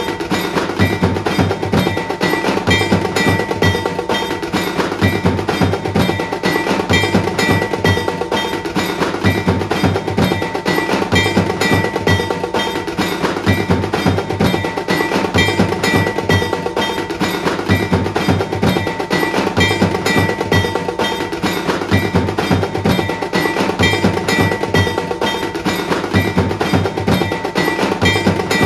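Loud procession percussion: a fast, even beat of drums and metallic clanging with a steady ringing tone over it, unbroken throughout.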